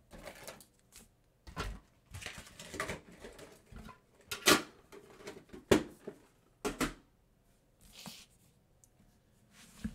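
A metal collector tin and its clear plastic insert being handled and taken apart: a run of separate clacks and knocks with rustling between them, the two loudest about four and a half and nearly six seconds in.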